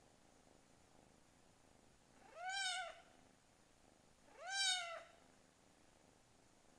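Kitten meowing twice, two short high-pitched meows about two seconds apart.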